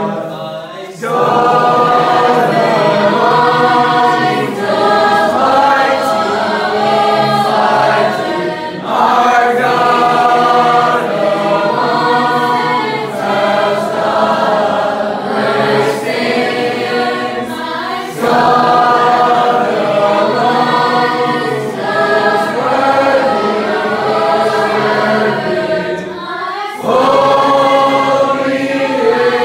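A group of people singing a worship song together like a choir, in phrases with short dips between them about a second in, near the middle and near the end.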